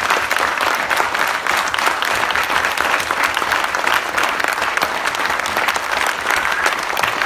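A large indoor audience clapping in sustained applause, many hands at once with no break.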